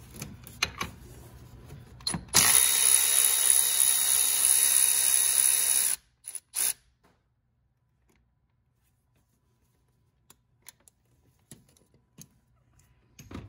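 Cordless electric ratchet spinning out a 13 mm bolt: a steady whir of about three and a half seconds starting a little over two seconds in, then two short bursts. A few light tool clicks come before it.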